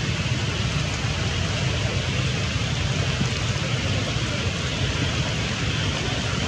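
Steady heavy rain falling on a flooded stream and its rocks, an even hiss.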